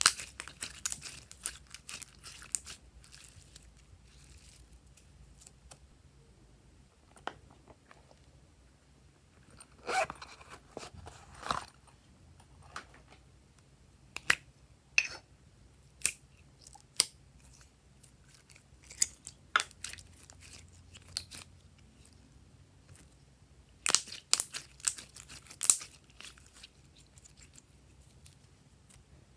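Slime being kneaded and mixed by hand: irregular sticky clicks and pops that come in clusters, with quiet gaps between.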